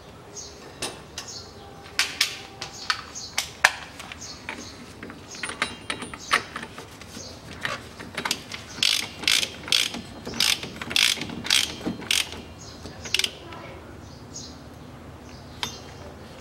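Hand ratchet clicking as a socket runs the front wheel hub nut down onto the axle, in irregular runs of sharp metal clicks that come thickest in the middle.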